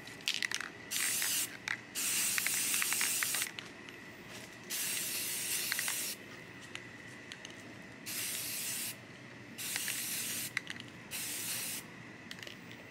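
Aerosol spray-paint can spraying in six short bursts of hiss, the longest about a second and a half, with a few light clicks between bursts.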